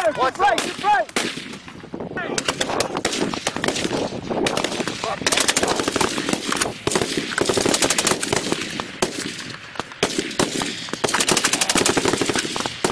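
Live gunfire from several weapons: bursts of rapid automatic fire from belt-fed machine guns mixed with scattered single shots, almost without pause apart from a short lull near the start.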